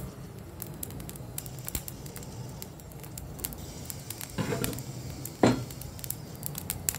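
Whole spices (coriander, fennel, fenugreek, black pepper and dried red chillies) dry-roasting in a dry pan, giving scattered small crackles and pops. One louder short sound stands out about five and a half seconds in.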